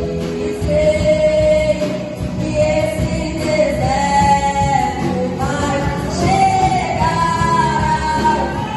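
A woman singing a Portuguese-language gospel worship song, holding long sustained notes that slide between pitches, over a full band accompaniment.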